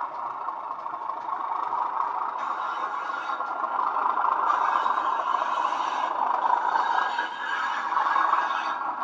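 Bachmann Class 37/4 model diesel's DCC sound decoder playing a Legomanbiffo English Electric engine sound file through its bass-enhanced speaker. The engine sound runs steadily and grows louder over the first few seconds as the loco comes nearer.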